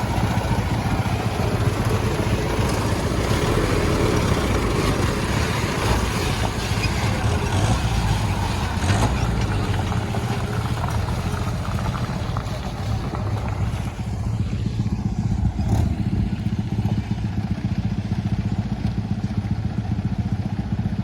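Old truck engine running steadily with a low, even rumble, briefly dipping in level about two-thirds of the way through. It runs without coughing or missing.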